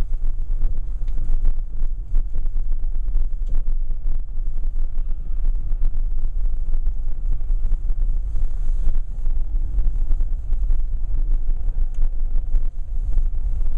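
Car driving along: a steady low rumble of engine and road noise with no sudden sounds.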